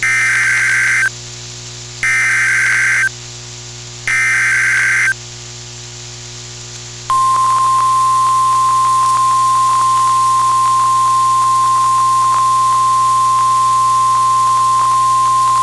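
NOAA Weather Radio Emergency Alert System broadcast: three one-second bursts of the SAME digital header tones, a second apart, then the long steady single-pitch weather radio warning alarm tone, which marks the start of a warning. Radio static hiss and faint crackles run underneath.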